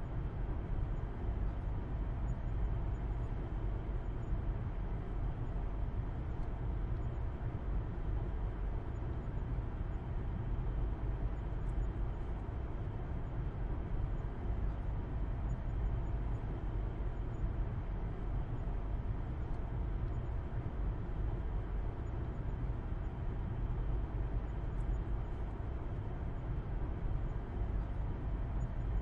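Steady low rumble of a car driving along at an even speed, engine hum and road noise with no changes in pace.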